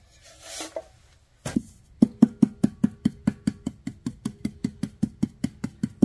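A steady, rapid series of knocks, about five a second with a slight ring, starting about a second and a half in: a tool tamping refractory down into a furnace lining form to compact it.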